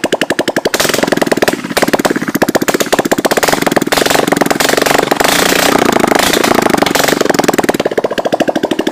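Yamaha TT-R230's single-cylinder four-stroke engine running with a steady pulsing beat, picking up revs and getting louder about a second in.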